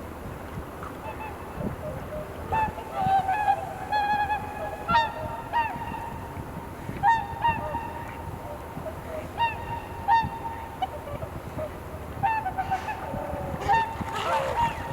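A flock of swans calling: repeated short, honking 'koo-koo' notes from several birds, overlapping in clusters throughout. A low wind rumble is on the microphone.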